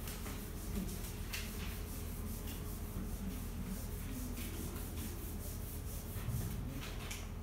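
Whiteboard eraser being rubbed across a whiteboard in a run of short scrubbing strokes.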